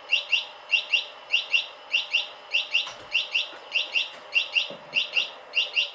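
Electronic buzzer (chirping module) on an Arduino motor controller, chirping in quick pairs about every 0.6 seconds over a steady hum. Both stop at the very end.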